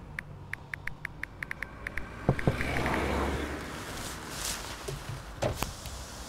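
Phone keyboard clicking as a message is typed, about a dozen quick taps in the first two seconds. Then a couple of sharp knocks, and two more near the end.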